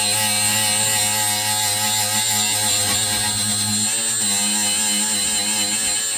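Milwaukee M12 Fuel cordless die grinder running steadily with a high whine, its abrasive pad lightly working a small engine block's gasket surface.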